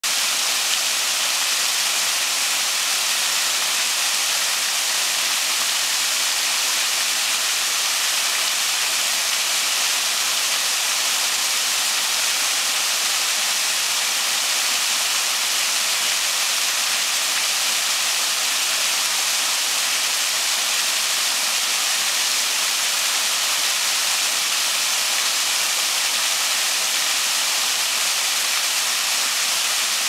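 Small waterfall: a curtain of water and thin falling strands splashing onto stepped rock ledges, a steady, bright hiss that does not change.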